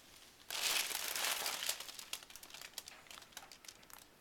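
Paper or plastic crinkling, starting suddenly about half a second in, dense for a second or so, then thinning into scattered crackles.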